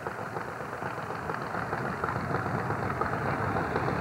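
Drag motorcycle's engine idling at the starting line, growing steadily louder.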